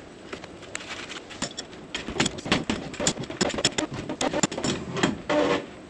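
Wrenches clicking and knocking against the brass flare nuts and fittings as a mini-split refrigerant line set is tightened onto the indoor head. The run of sharp clicks starts about a second and a half in and ends with a short pitched sound near the end.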